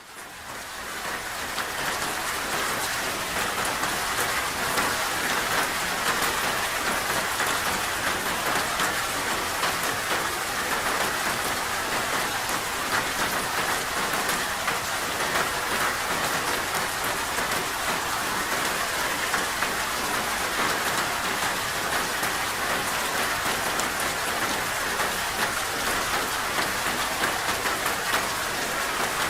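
Steady rain with a dense patter of drops, fading in over the first two seconds and then holding even.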